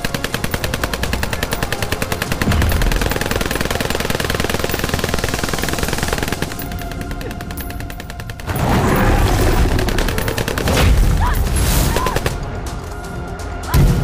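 Sustained automatic gunfire, a fast even rattle of shots lasting about six seconds, over film score music. Later a loud rumbling swell of noise builds and fades, and a heavy impact hits near the end.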